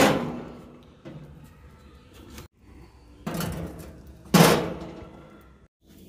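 A few sudden knocks and clanks from a metal fish grill basket being handled and opened, the loudest about four and a half seconds in.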